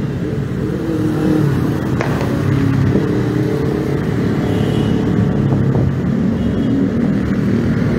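Busy road traffic: motorcycles and cars passing close by, their engines running steadily.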